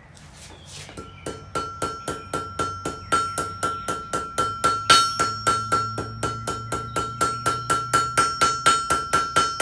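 Blacksmith's hand hammer striking hot mild steel on an anvil in a steady rhythm of about three blows a second, each blow ringing. The smith is drawing out the end of an S-hook to thin it for a curl. The blows start about a second in, and one about halfway is the loudest.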